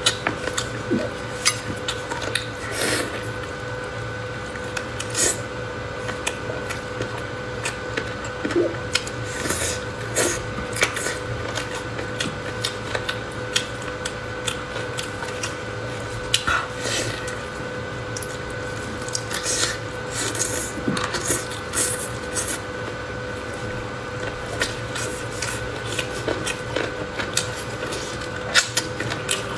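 Close-miked eating: chewing and mouth noises heard as irregular, frequent clicks and smacks, over a steady faint hum.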